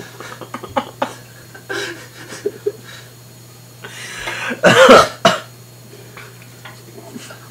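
A man coughing hard into his hand: a rising breathy rush a little past halfway, then a loud harsh cough and a shorter second one. Quiet breaths and small clicks around it, over a steady low hum.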